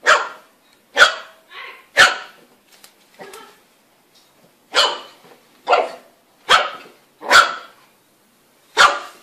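A puppy barking in short, sudden barks, about ten in all, spaced roughly a second apart with a couple of longer pauses.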